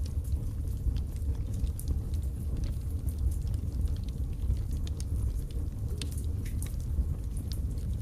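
Wood fire burning in a fireplace: burning logs crackling with many small irregular pops and snaps over a steady low rumble of the flames.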